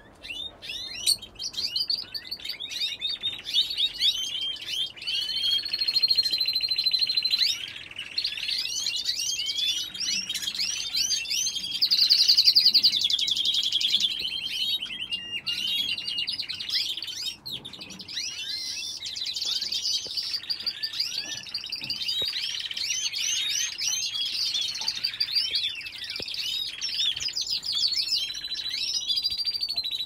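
A flock of canaries singing and chirping together with other small cage birds: a dense, continuous chorus of rapid trills and short tweets, loudest about twelve seconds in.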